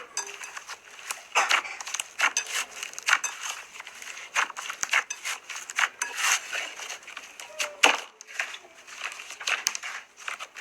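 Slime being squeezed and poked, giving a dense, irregular run of sticky clicks and crackling pops.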